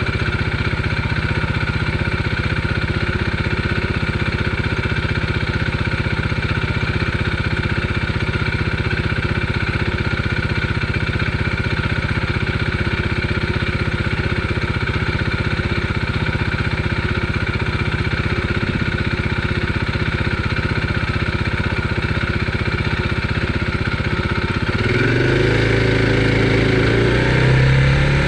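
Steady riding noise from an e-bike on the move: a broad rushing of wind and tyres under a constant motor hum. About 25 seconds in, a louder motor sound joins in, its pitch stepping up and down.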